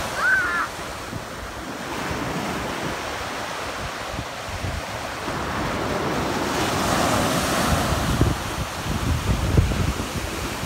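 Small ocean waves breaking and washing up a sandy shore, with wind buffeting the microphone in gusts.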